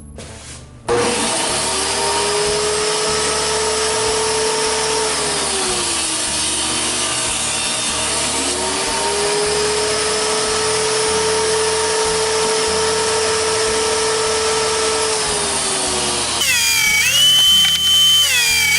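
Electric power saw starting up and cutting wood, its motor pitch sagging under load twice during the cuts and recovering in between. Near the end a different, higher-pitched power-tool whine takes over.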